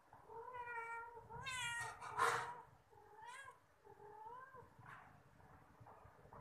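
Domestic cats meowing: about five drawn-out meows that bend in pitch over the first four and a half seconds. A harsher, noisier cry a little over two seconds in is the loudest.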